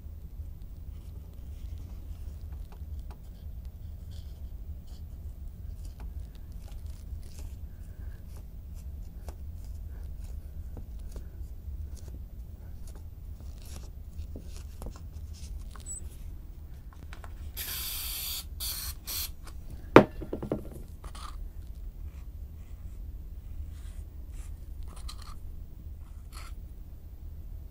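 Faint rustling, scraping and tapping of craft-foam sheets being handled and glued with a wooden stick, over a steady low hum. About two-thirds in, an aerosol can sprays with a short hiss, followed by a single sharp knock.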